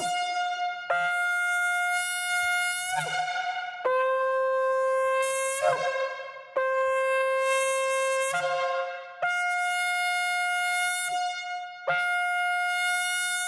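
A silver shofar blown in long, held blasts. The blasts alternate between a lower and a higher note and are separated by short breaks.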